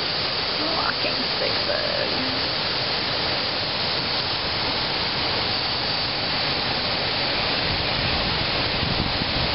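Steady, unbroken rush of flowing water, like a nearby river or cascade.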